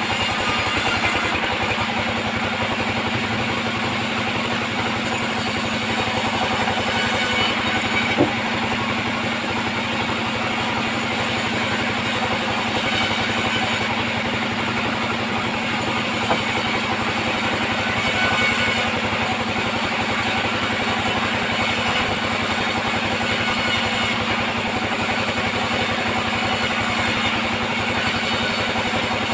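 Band sawmill running steadily with its drive motor droning, and two brief knocks, about eight seconds in and again past the middle.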